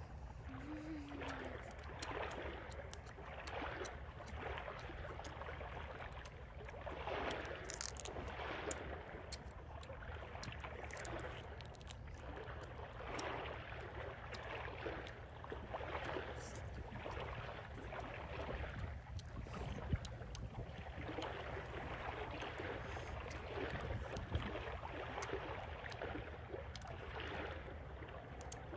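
Someone chewing and smacking on lobster meat, with small clicks and cracks from handling the shell, over a steady low rumble of outdoor ambience.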